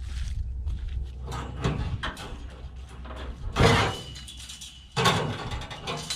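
Knocks and handling noise, with a loud bang about three and a half seconds in and another sudden clatter about five seconds in.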